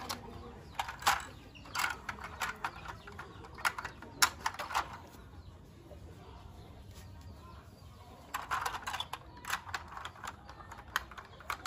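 Plastic clicks and light clatter of a toy high-speed train's locomotive and carriages being handled and snapped together, in two bunches of clicks with a quieter stretch in the middle.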